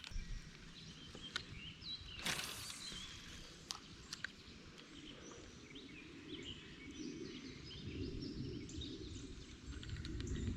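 Faint birdsong, with many short chirps over low outdoor ambience. A brief rush of noise comes about two seconds in, and a few faint clicks are scattered through.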